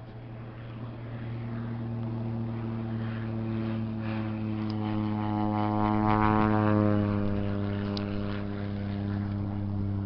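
Small propeller aircraft flying past: its engine drone grows louder to a peak about six seconds in, then eases off slightly as it moves away.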